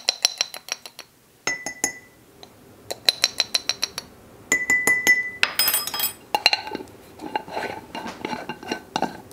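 A metal measuring spoon clinking against a glass jar in quick runs of taps as spice is knocked off it, followed by a busier clatter of scraping and knocking in the second half.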